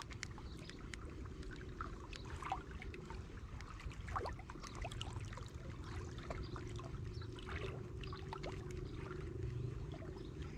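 Water lapping and trickling, with many small irregular splashes and ticks over a low, steady rumble.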